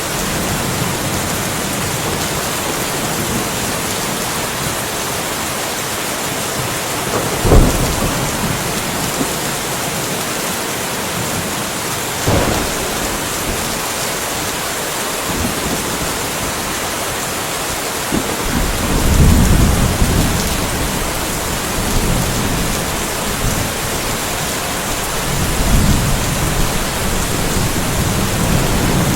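Steady rain with thunder: a sharp, loud thunderclap about seven seconds in, another crack about twelve seconds in, and low rolling rumbles in the second half.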